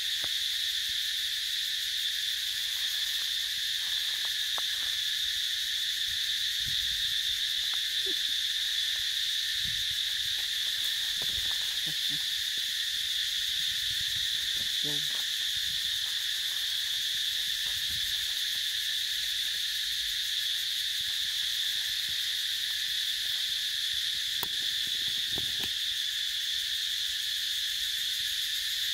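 Steady, continuous high-pitched drone of an insect chorus, unchanging throughout, with a few faint rustles underneath.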